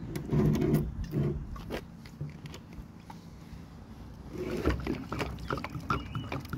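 Water glugging out of the neck of a plastic water bottle and splashing onto a concrete sidewalk, starting about two-thirds of the way in as a quick run of gurgles and splatters.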